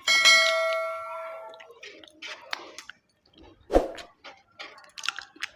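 A metal dish struck sharply, ringing out for about a second and a half, followed by close chewing and eating noises with small clicks, and a dull thump about four seconds in.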